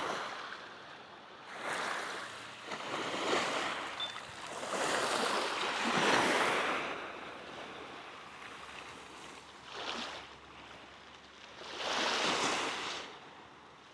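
Sea waves breaking and washing on the shore, a hiss of surf that swells and falls away about five times, loudest about six seconds in.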